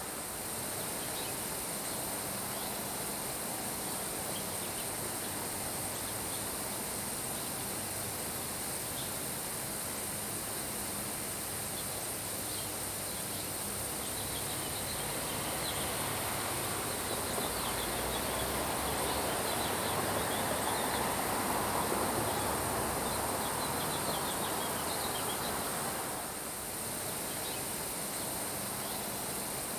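Steady hiss of a summer rain shower falling on grass, with faint chirping throughout. The rain swells for several seconds past the middle, then eases back.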